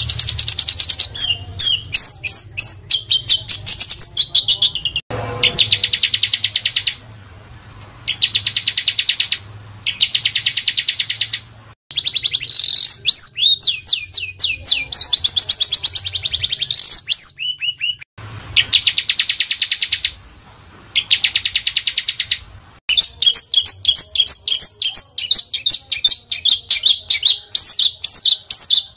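Small songbirds singing loud, rapid, high-pitched song: fast trills of evenly repeated notes lasting a second or two, alternating with varied chattering full of quick rising and falling sweeps. The sound breaks off abruptly several times, as in an edited masteran recording.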